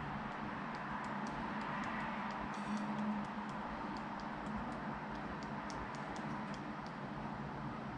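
Light, irregular clicks of typing on a smartphone's on-screen keyboard, over a steady background hum.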